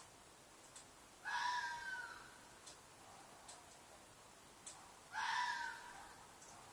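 Fox screaming: two shrieks about four seconds apart, each about a second long and falling slightly in pitch.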